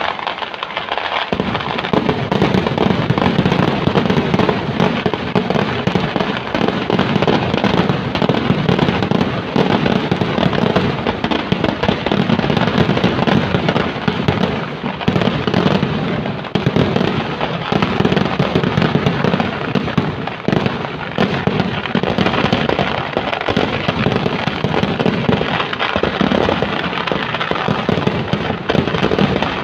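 Temple-festival fireworks: a dense, unbroken barrage of rapid firecracker bangs and crackle, filling out with heavier low booms about a second in.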